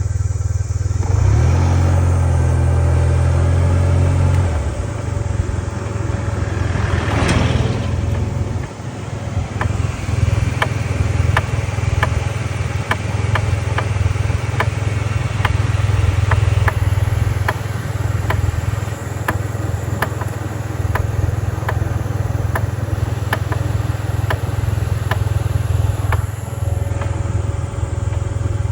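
Yamaha TMAX 560 scooter's engine running, with one rev that rises and falls several seconds in. After it comes a sharp, regular tick about twice a second: the abnormal noise the owner is showing.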